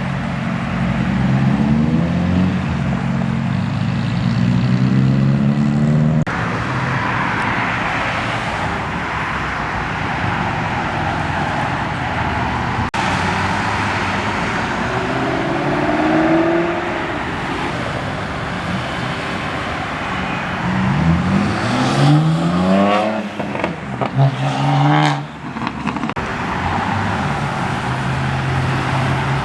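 Car engines pulling away and accelerating past one after another, their notes rising in pitch as they rev. About three-quarters of the way through, one engine revs hard several times in quick succession.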